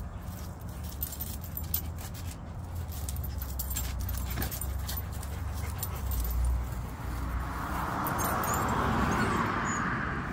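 Dogs (a Shiba Inu and a German Shepherd) whimpering in excitement at a squirrel up a tree, the Shiba jumping against the trunk. Near the end, a passing car's tyre noise swells up.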